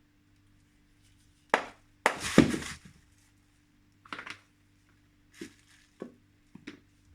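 Chalk being worked by hand: a sharp snap about a second and a half in, then nearly a second of loud crunching, followed by a few shorter scrapes and taps.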